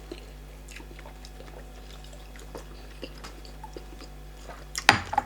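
Close-up eating sounds of starch fufu and bitter leaf soup being chewed: soft wet mouth clicks and smacks, with one louder, sharper noise near the end.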